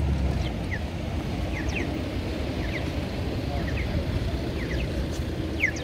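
Steady outdoor background noise: a low rumble with a general din, and brief faint high chirps scattered throughout.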